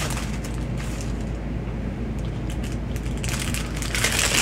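Light rustling and crinkling from a greeting card and its packaging being handled, strongest near the start and again near the end, over a steady low hum.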